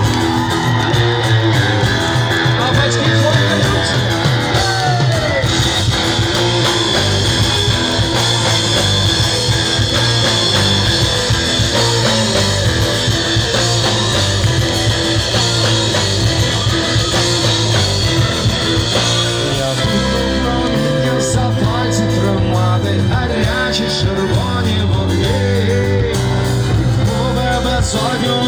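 Live rock music from a stage, heard from within the audience: a band playing with electric guitar, with singing over it.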